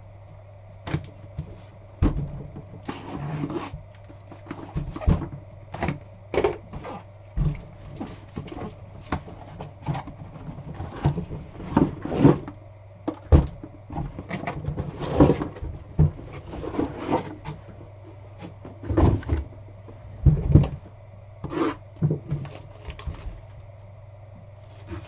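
A sealed cardboard case of trading-card hobby boxes being cut and pulled open, with irregular scrapes, rustles and knocks as the flaps are torn back and the shrink-wrapped boxes are handled, over a steady low hum.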